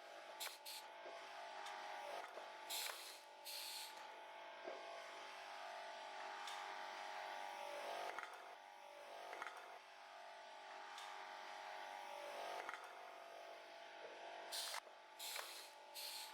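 Pneumatic aluminum can crusher cycling: short hisses of exhaust air from its mufflers, a pair about three seconds in and again near the end, with scattered clicks and crunches between them over a steady hum.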